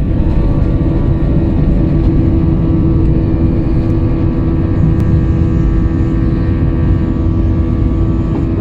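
Airbus A320-family airliner's jet engines at take-off thrust, heard from inside the passenger cabin: a loud, steady roar with a steady humming tone over it, through the take-off roll, lift-off and early climb.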